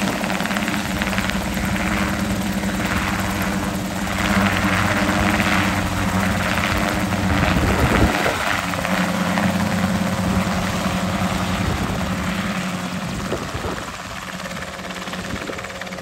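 Two-seat tandem Kompress light helicopter hovering just above the grass, its engine and rotor running steadily. The sound falls away near the end as the helicopter moves off.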